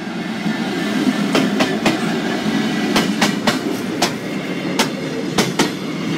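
Freightliner Class 66 diesel locomotive passing close by, its two-stroke V12 engine running and growing louder in the first second as it draws level, with flatbed wagons behind. From about a second in, its wheels clack sharply over the crossing's rail joints, often in quick pairs.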